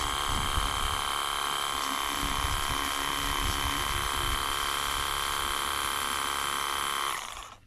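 Ingco cordless 20V pressure washer running steadily, its motor and pump giving a high whine as it sprays water. It stops about seven seconds in, dying away within half a second.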